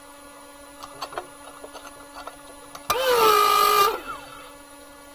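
A small electric power tool's motor runs in one short burst of about a second near the middle, its whine dropping in pitch and then holding before it stops. Light clicks and knocks of metal handling come before it, over a steady low hum.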